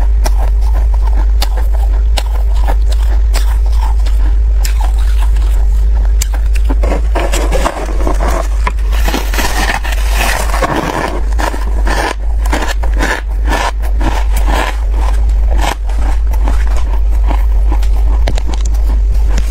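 Close-miked crunching of freezer frost being bitten and chewed, with dense crunching about halfway through as a bite is taken from a block of frost. A steady low hum runs underneath.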